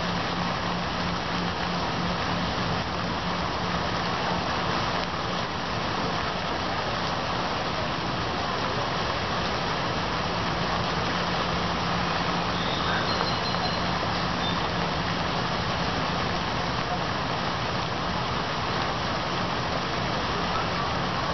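Steady rain falling, an even hiss with a faint low hum underneath.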